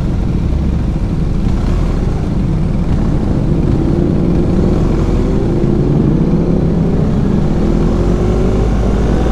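BMW GS motorcycle under way, its engine note climbing slowly in pitch through the second half as it accelerates, over a steady low rumble of wind and road noise.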